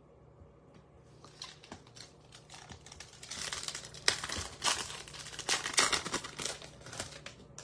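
Plastic wrapper of a Bowman baseball card pack crinkling as it is torn open: a few light clicks, then a dense crackle that builds about three seconds in and is loudest near the middle.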